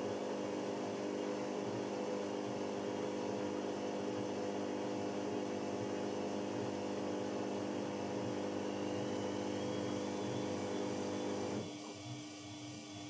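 Electrolux washing machine running with a steady mechanical hum. A little before the end the motor cuts out abruptly, and a quieter single-note hum carries on.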